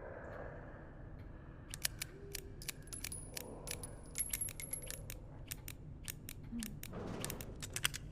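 A revolver's mechanism being worked: a long run of sharp, small metallic clicks and clacks, irregular in spacing and coming thick and fast near the end.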